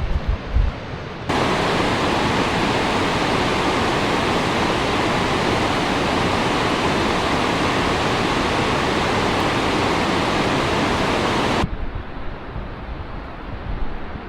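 Waterfall on the Genesee River rushing as a loud, steady roar of falling water, which starts suddenly about a second in and cuts off suddenly near the end. A few low thumps come just before it.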